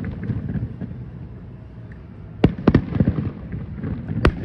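Fireworks show heard from a distance: a low rumble with crackling, and sharp bangs of exploding shells, three in quick succession about two and a half seconds in and a loud one near the end.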